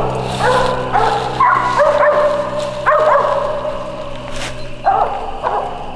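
Squirrel dogs barking treed, repeated short barks at irregular intervals from more than one dog: the sign that they are holding a squirrel up a tree.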